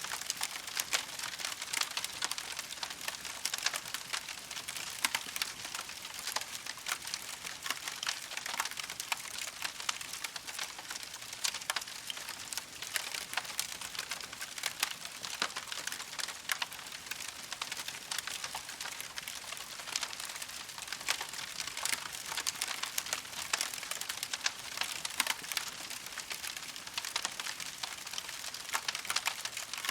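Wood campfire crackling steadily: dense, irregular small snaps and crackles over a soft hiss.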